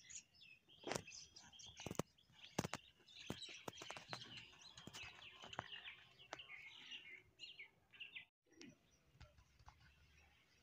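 Small birds chirping and twittering, faint, with a few sharp clicks standing out in the first few seconds.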